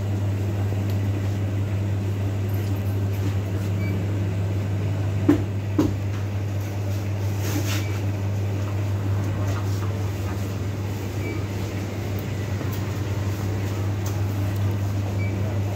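A steady low machine hum over even background noise, with two short knocks about five seconds in.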